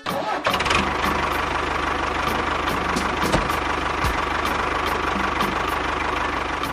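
A small engine running steadily, with a fast, even pulsing beat low down.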